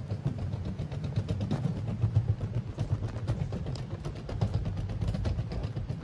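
Wheelchair rolling along a raised walkway: a steady low rumble from the wheels with many small irregular clicks and rattles.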